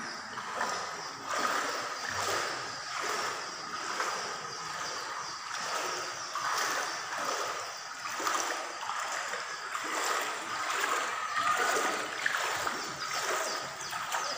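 Someone wading through floodwater inside a building, the water splashing and swishing with each step, about one step a second.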